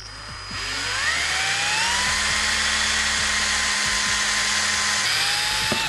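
Cordless drill with a small bit boring a safety-wire hole through a motorcycle bolt head held in locking pliers. The motor whine rises as it spins up over the first two seconds, holds steady at high speed while the bit cuts, drops slightly near the end and then stops.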